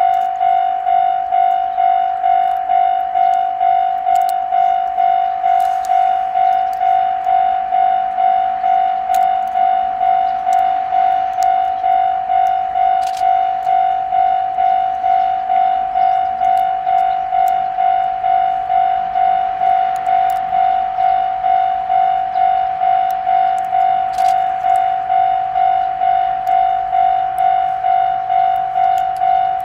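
Electronic railway level-crossing alarm ringing: one bell-like tone struck over and over, just under twice a second, without a break. It is the warning that a train is approaching. Faint low running sound of the approaching train underneath.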